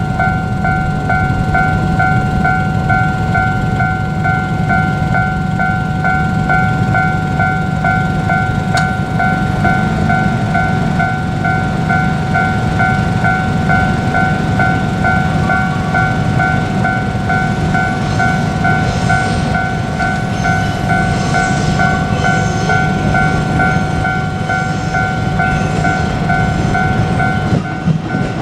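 Japanese level-crossing warning bell ringing in a steady, rapidly repeating ding over the low rumble of a passing train.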